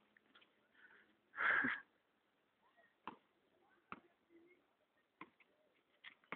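A short breathy rush close to the microphone about a second and a half in, then a few faint, sharp knocks at uneven intervals.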